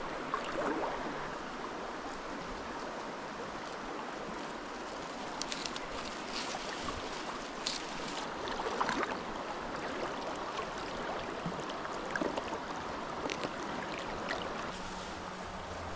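Mountain trout stream flowing, a steady rush of water with a few short ticks scattered through it. A low steady hum comes in near the end.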